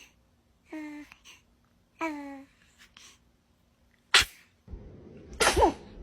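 A baby sneezing several times. Two small high-pitched sneezes each carry a short falling squeak. A sharp, much louder sneeze follows about four seconds in, and another sneeze comes near the end over louder background noise.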